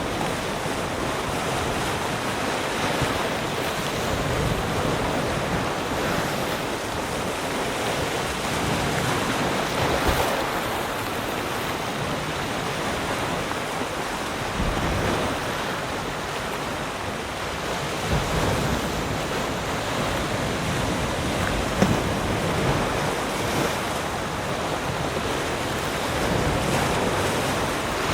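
Ocean waves washing ashore in a steady, continuous surf, swelling and easing gently every few seconds.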